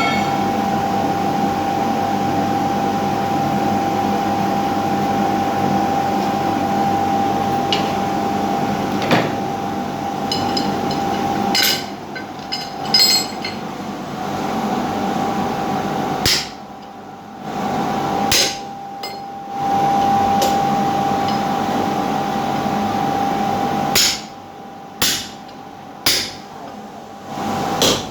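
Blacksmith's hammer striking metal several times over a steady machine hum with a held tone. In the second half the hum cuts out and comes back several times, with a sharp strike at each return.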